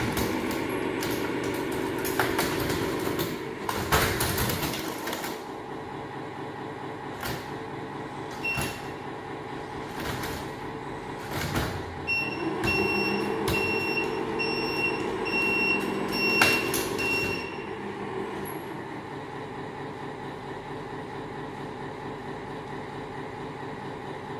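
Electric hydraulic pump of a large RC hydraulic bulldozer running, its hum swelling and easing as the hydraulics are worked, with scattered clicks and knocks. Partway through comes a run of short high electronic beeps, about two a second, lasting some five seconds.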